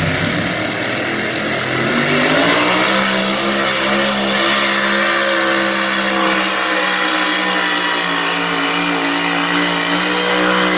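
Pro Mod pulling tractor engine running loud, revving up about two seconds in and then holding a steady high rev.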